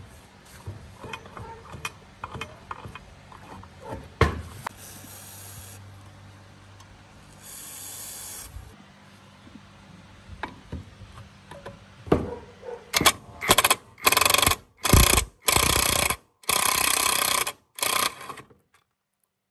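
Light metal clicks and knocks from handling a saw's cast parts. In the second half a cordless impact driver hammers at a screw in the saw's cast arm in a run of about seven short bursts, one trigger pull after another, as it works the screw loose.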